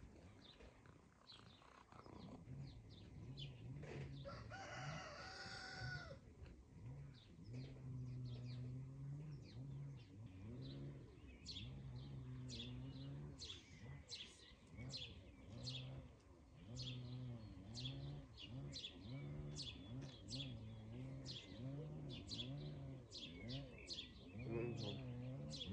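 Rural birdsong: small birds chirping in short, repeated high notes, with a rooster crowing once about five seconds in. A low, wavering hum runs underneath.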